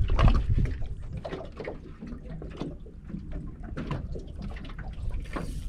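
Small waves lapping and slapping irregularly against a small aluminium boat's hull, over a low steady rumble.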